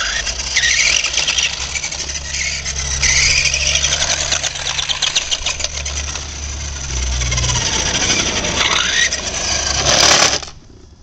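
Large remote-control 1969 Camaro toy car running: a loud, whirring noise that glides up and down in pitch like revving, cutting off abruptly about ten seconds in.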